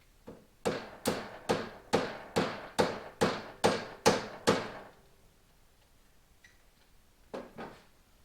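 Hammer blows on metal: about ten evenly spaced strikes, a little over two a second, each ringing briefly, then a pause and two more quick strikes near the end.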